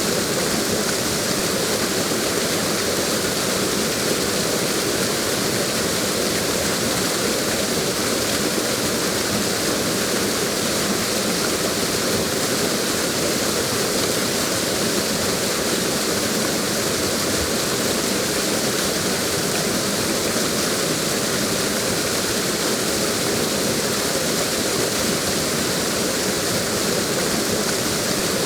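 Waterfall: a steady, even rush of falling water with no distinct events.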